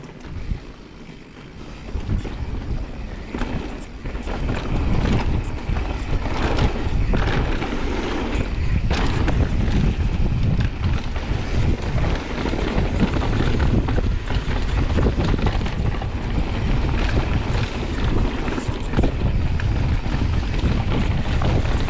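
Wind buffeting the microphone of a camera on a mountain bike descending a dirt trail, with the rumble and rattle of tyres and bike over roots and rocks. Quieter for the first couple of seconds, then louder as speed builds.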